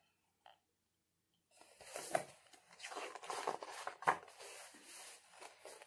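Paper rustling and scraping as a large picture book is handled and its pages turned, with a couple of sharper clicks. It starts after about a second and a half of near silence.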